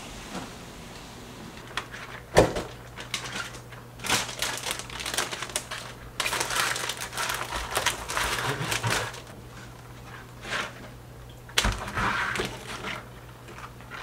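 Rubber-gloved hands scrubbing and swishing in a stainless steel sink full of foamy percarbonate water, in rustling bursts. Two sharp knocks stand out, one about two seconds in and one near the end, over a steady low hum.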